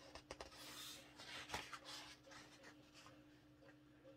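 Faint rustle of a thick matte photobook page being turned by hand, with a few light taps of paper in the first second and a half, over a steady low hum.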